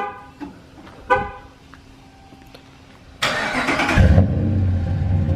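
Two short horn chirps, then about three seconds in the starter cranks and the 2014 Ram 1500's 5.7-litre Hemi V8 fires up. It settles into a loud idle with a low bumble through a new Flowmaster American Thunder dual cat-back exhaust.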